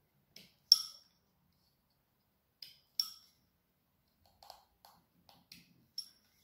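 Detail knife cutting into a bark-covered branch around a carved acorn, giving short, sharp, crisp clicks as each cut finishes. There are two loud ones, about a second in and about three seconds in, each just after a lighter tick, then several lighter clicks near the end.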